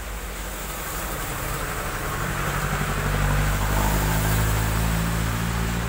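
A light truck approaching and passing on a wet road, its engine hum growing to a peak about three to four seconds in, with tyres hissing on the wet surface. A motorcycle goes by at the same time.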